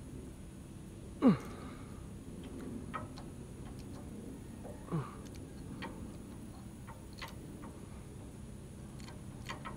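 Ratchet wrench clicking now and then as it turns the bolts of a flange-type hydraulic hose fitting, settling into a steady run of ratcheting clicks near the end. Twice, about a second in and again about five seconds in, a short sound falls steeply in pitch, the first one the loudest.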